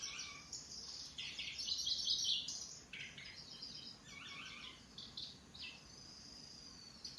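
Kecici belalang (cici lurik) songbird singing in fast, buzzy, chattering phrases of rapid notes. A thin, drawn-out whistle comes near the end.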